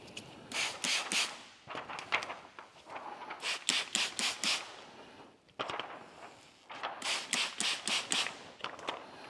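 A hand trigger spray bottle squirting slip solution in quick series of short hissing sprays, several in a row, three times over.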